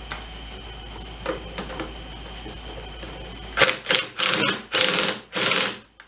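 Cordless impact driver hammering the nuts down on top of a truck's front strut and leveling spacer, in about five short rattling bursts that start a little past halfway and stop just before the end. Before the bursts there are only a steady hum and a few light clicks.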